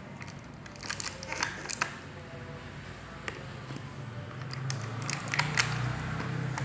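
Plastic packaging crinkling and small hard plastic toy pieces clicking as a Play-Doh set is unpacked by hand, in scattered bursts of crackles and clicks.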